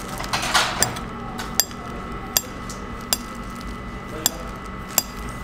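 Kitchen knife slicing a layered butter cake, the blade tapping sharply on the ceramic plate at the end of each cut, about six times at roughly one every three-quarters of a second.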